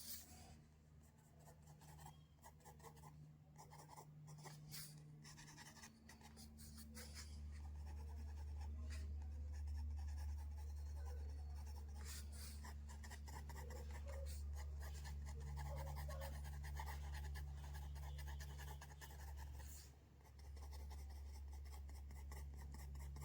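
Pencil strokes scratching on paper, with a steady low hum that comes up about six seconds in.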